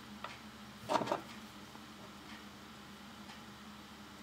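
A short cluster of light clicks about a second in, from small metal hand tools (side cutters and tweezers) handled over a wooden workbench, with a few fainter ticks later. Underneath is a faint steady hum.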